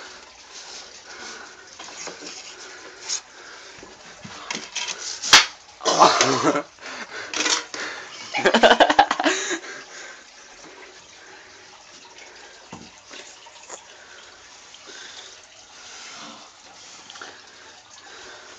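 A sharp knock about five seconds in, then a few seconds of loud bursts of noise and voices, over a steady hiss.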